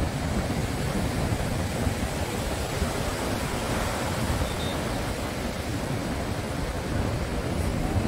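Steady rushing noise of wind buffeting the microphone over surf breaking along the beach, with no distinct events.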